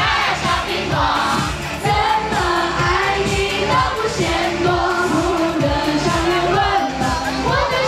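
Live Mandopop song: a woman singing a melody over a band with a steady beat.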